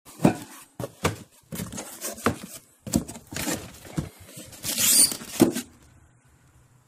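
Cardboard box and foam packaging being handled: a string of knocks and thumps, with a rustling scrape about five seconds in.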